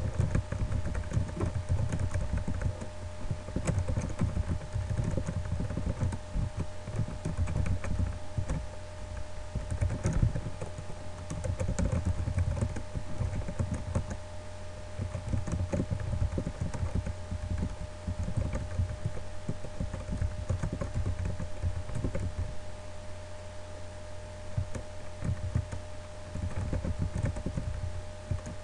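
Typing on a computer keyboard: rapid, irregular keystroke clicks, over a steady low hum.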